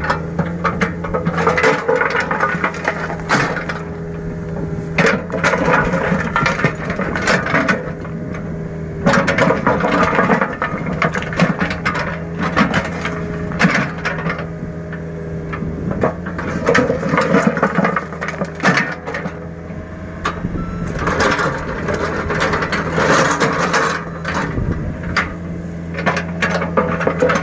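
Small excavator's engine running steadily while its bucket scrapes and spreads sand, with crunching scrapes coming in bursts every few seconds.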